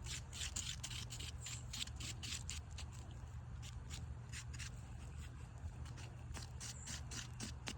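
Thick two-part steel-reinforced epoxy paste (JB Weld) being stirred and scraped together with a mixing stick. It makes a steady run of short, scratchy scraping strokes, several a second.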